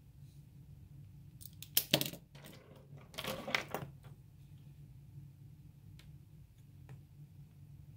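Plastic pens knocking and clattering on a desk as one pen is put down and another picked up: two sharp clicks about two seconds in, a rattling run of clicks a second later, then a few light ticks.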